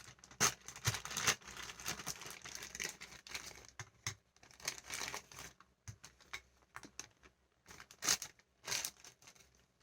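Plastic toy packaging crinkling and tearing in irregular bursts as a toy is unwrapped.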